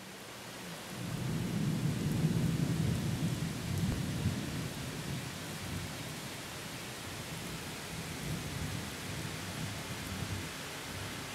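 Thunder of a weak thunderstorm rumbling low and rolling, swelling about a second in and loudest around two to four seconds, then easing. Steady rain hisses beneath it.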